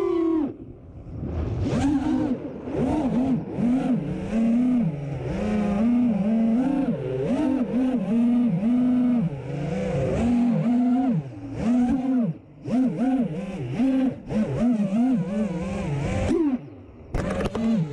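5-inch FPV freestyle quadcopter's brushless motors (Hypetrain Drib 2450kv on DAL Cyclone 5050 props) whining, heard from the onboard camera. The pitch rises and falls quickly with the throttle punches, and it drops away briefly several times where the throttle is chopped.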